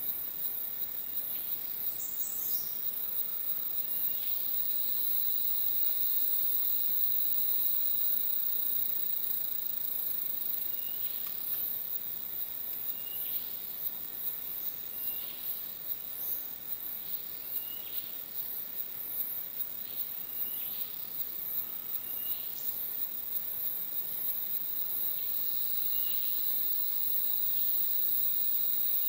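Rainforest insect chorus: a high pulsing buzz over steady shrill tones, with short chirps every second or two.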